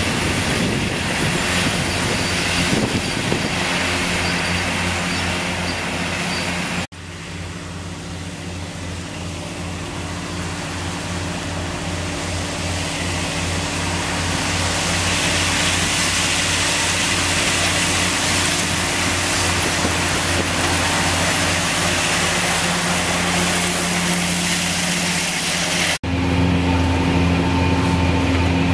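Fendt 724 Vario tractor's six-cylinder diesel engine running under load, with the Krone EasyCut mowers cutting grass, and a steady low throb under a broad hiss. The sound cuts off abruptly twice. After the first cut it is quieter and grows gradually louder as the tractor approaches. After the second cut, near the end, the engine drone is louder and steadier, as heard right beside the cab.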